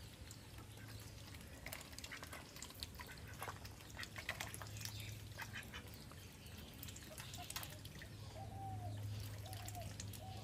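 Domestic ducks dabbling in a duckweed-covered water tank: bills working the surface with scattered small splashes, drips and clicks, then a few short, soft quacks near the end. A steady low hum runs underneath.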